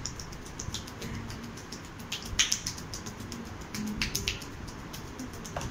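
Hands making quick, irregular slapping claps, as in percussive tapotement massage strokes (hacking, beating, pounding), with a few sharper claps a little before halfway and again around two-thirds through.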